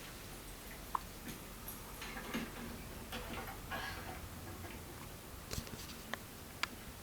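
A newborn baby hiccuping: several short, sharp clicks spaced irregularly.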